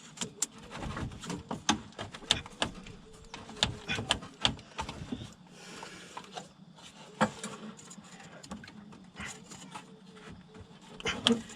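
Irregular knocks, clicks and rattles of plastic and metal parts being handled and pried, as a car's radiator and A/C condenser are worked loose in the engine bay. The strikes come in clusters at uneven intervals.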